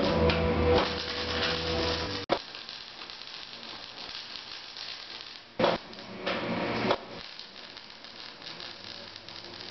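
Background music for about two seconds, cut off abruptly; then an electric welding arc crackling steadily on a steel frame, with a brief louder burst a little past the middle.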